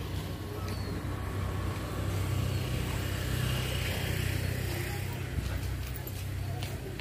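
An engine running steadily, growing louder about two seconds in and easing off toward the end.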